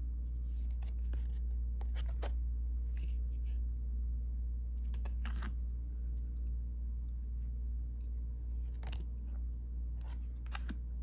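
Oracle cards being handled and slid over one another, short papery rustles and flicks every second or two. A steady low hum runs underneath.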